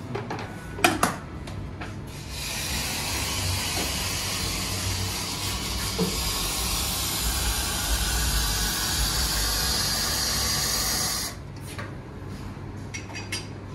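Espresso machine steam wand hissing steadily for about nine seconds with a low rumble underneath, starting about two seconds in and cutting off sharply. Just before it, two sharp knocks of metal.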